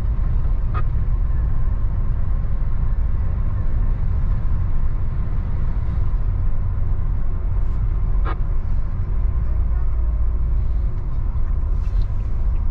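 Steady low rumble of a truck driving, heard from inside the cab, with a couple of brief clicks.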